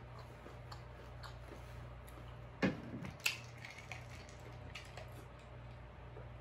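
Close-up mouth sounds of chewing with small wet clicks. A little under three seconds in, a glass of ice water is lifted with a sharp knock and a clink of ice, and then he drinks from it. A steady low hum runs underneath.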